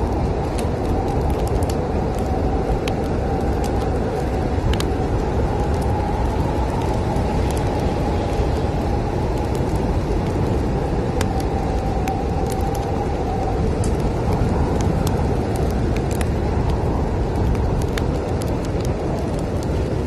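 Snowstorm wind blowing as a steady low rumble, with a faint whistling howl over it that fades out near the end, and sparse sharp crackles from a wood fire.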